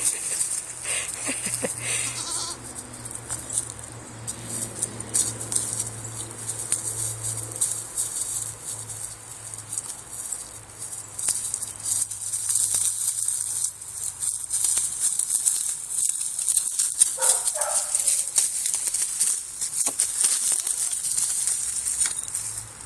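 Two young goats, a part-Boer kid and a pygmy goat, headbutting in play: scattered knocks and scuffles, with a short goat bleat about three-quarters of the way through, over a steady high hiss.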